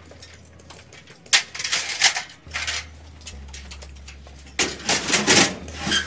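Metal clattering and rattling of an aluminium stepladder and hand tools being handled, in two bursts of clicks and knocks about a second in and again from about four and a half seconds in.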